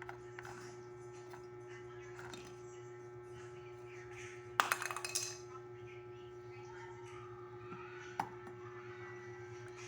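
Metal parts of an electric fan clinking and clattering as it is taken apart: a short burst of clinks about halfway through and a single click near the end, over a steady low hum.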